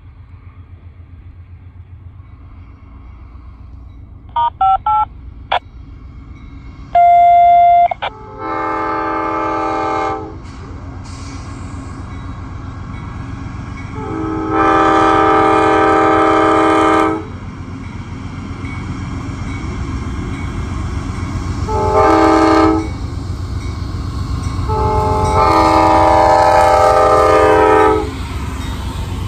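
Amtrak GE P42DC Genesis locomotive's air horn sounding the grade-crossing pattern, long, long, short, long, over the diesels' low rumble, which grows as the train approaches. Before the horn there are a few short electronic beeps and then a loud single electronic tone lasting about a second.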